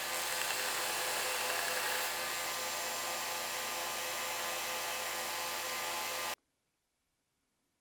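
Old, worn DeWalt power tool running at a steady speed with a whining hum, then cutting off abruptly about six seconds in. The owner reckons the tool has nearly seen its last days.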